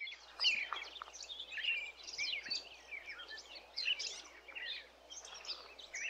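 Several birds chirping and singing at once, a busy run of quick, high overlapping chirps and short warbled phrases.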